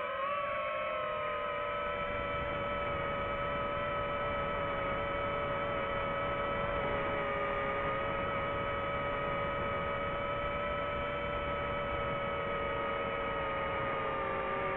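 DJI FPV quadcopter's motors and propellers in flight: a steady droning whine of several tones, its pitch shifting slightly near the start and again near the end as the drone manoeuvres.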